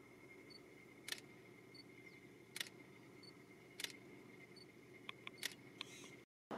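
Near silence: a video camera's own faint steady whine, with three soft clicks about a second and a half apart and a quick run of smaller clicks near the end, before the sound cuts out.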